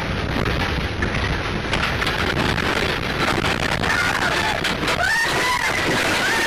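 Steady rushing road and engine noise of a truck travelling at speed, picked up by its dashcam. About four seconds in, a high wavering tone starts and rises and falls for the last couple of seconds.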